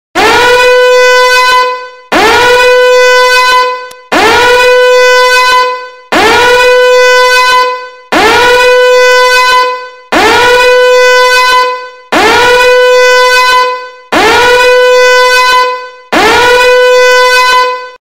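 Alarm ringtone: a loud horn-like tone blaring nine times, once every two seconds. Each blast slides quickly up in pitch into a steady held note, then fades off just before the next.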